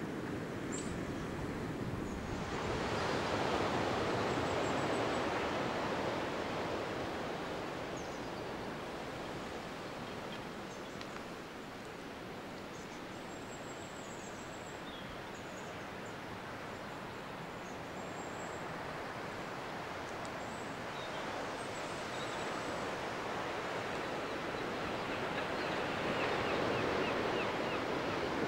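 Steady rushing of sea surf and wind, swelling about three seconds in and again near the end.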